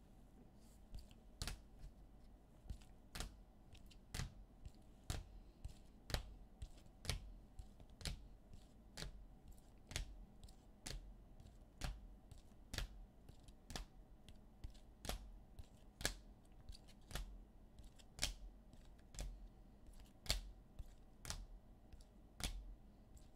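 Trading cards being set down one after another on a table, each landing with a sharp click at a steady pace of about one a second.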